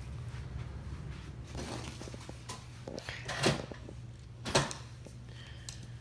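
Household knocks and handling noise: a few short rustles and two louder knocks, about three and a half and four and a half seconds in, over a steady low hum.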